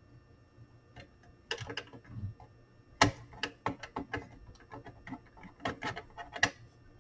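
Light metallic clicks and taps as a sheet-metal cover with bendable tabs is handled and fitted against the chassis of an 8-track player: a few scattered clicks at first, then a quick irregular run of clicks from about three seconds in.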